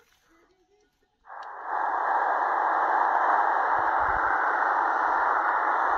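XHDATA D-808 shortwave receiver's speaker hissing with steady band static, the set in upper-sideband mode tuned to 14,250 kHz on the 20-metre amateur band with no station on yet. The hiss comes in about a second in after near silence and then holds steady and muffled, confined to the narrow voice passband.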